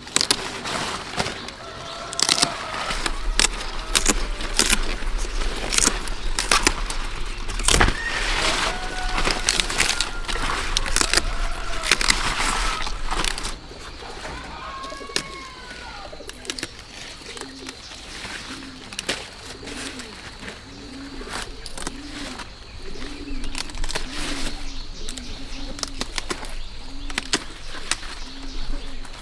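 A dove cooing over and over, a short low coo about once a second through the second half. Before that, a run of sharp cracks and snaps with higher bird calls.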